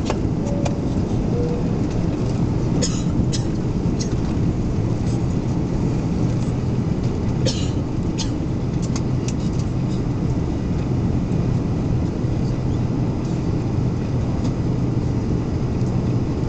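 Steady cabin noise of an airliner on approach, heard from inside the passenger cabin: a constant roar of engines and airflow with a low hum, and a few light clicks.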